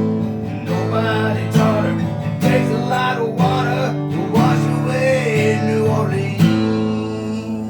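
Music: acoustic guitar strumming chords with a melodic line over them, ending on a last chord struck about six and a half seconds in and left to ring.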